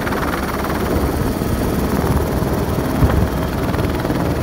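Helicopter engine and rotors running steadily.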